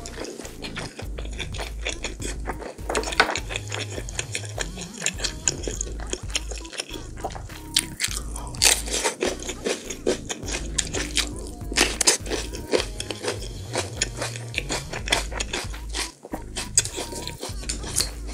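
Close-miked chewing with frequent crisp crunches, louder in the middle: a person eating with the mouth closed, biting into and chewing raw red pepper.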